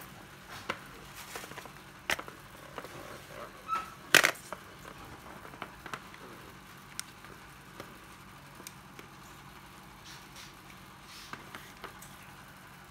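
Plastic cordless drill being handled: scattered clicks and knocks, the loudest about four seconds in, with no motor running.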